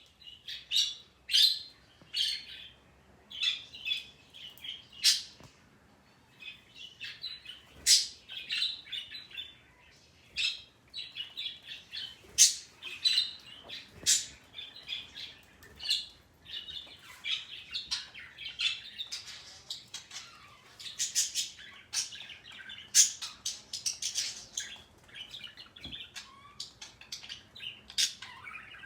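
Pet parrot calling over and over: a long run of short, high chirps and squawks in quick clusters, with brief pauses between them.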